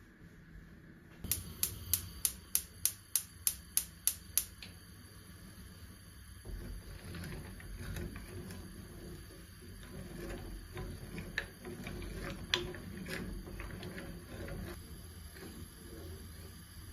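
A quick run of about ten sharp, evenly spaced clicks, roughly three a second, followed by soft, uneven handling noise with scattered small ticks and taps.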